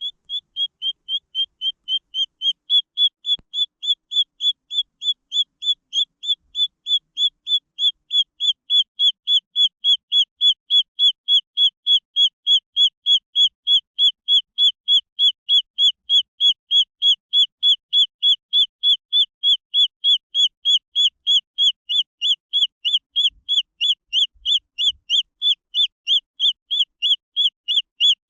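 Green junglefowl chick peeping: a rapid, very even series of short, high peeps, about three a second, without a break.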